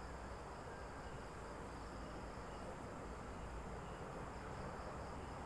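Faint, steady chirring of insects in the background, with no distinct events.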